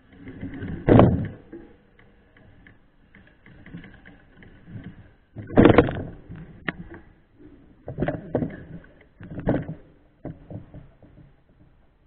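Irregular knocks and clatters of a mountain bike jolting over a rough dirt trail at walking pace, picked up through the camera mounted on the bike. Four louder bumps stand out.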